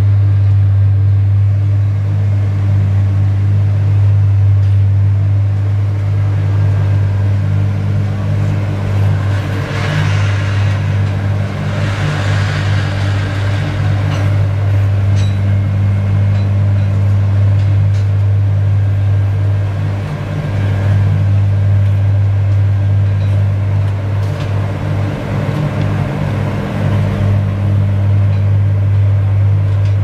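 Slipform concrete paver running with a steady low engine drone, a second hum rising and falling in and out. A rushing noise swells over it for a few seconds about ten seconds in.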